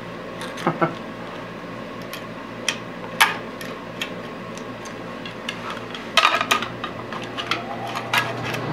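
Small metal clicks, taps and clinks from hand work fitting and closing a part on a surface grinder, likely the steel cover of its electrical box, with a cluster of knocks about six seconds in. A steady low hum runs underneath.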